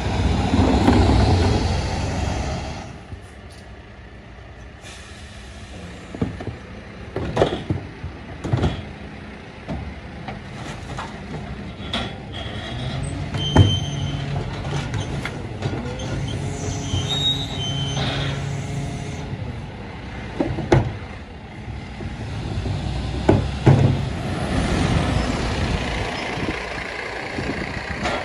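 Bucher rear-loader garbage truck working at the kerb: its engine and hydraulics run loudly for the first few seconds, then settle to a steady idle. Sharp clunks of wheelie bins against the hopper come now and then, the loudest about halfway through, with short hisses in between.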